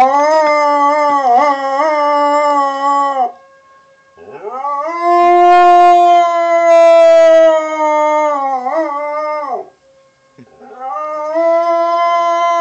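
A dog howls along with a tornado siren in three long howls. Each howl slides up at the start, wavers, and drops away at the end, with short breaks between them. A faint steady siren tone carries on underneath.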